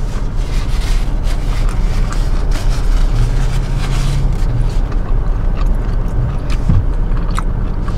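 Steady low rumble inside a Jeep's cabin with the engine running, under close-up chewing, mouth clicks and a paper napkin rustling.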